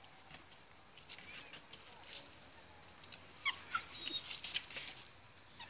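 Light scratching and rustling of a puppy's paws on wood chips and a wooden rabbit hutch. A few short, high, falling chirps come about a second in and again in a cluster around three and a half seconds.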